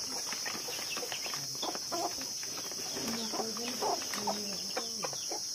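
Chickens clucking among other birds chirping, over a steady high-pitched hiss.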